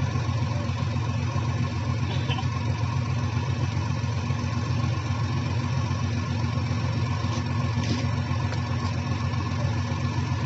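Vehicle engine running at a steady speed: a low, even drone with no revving.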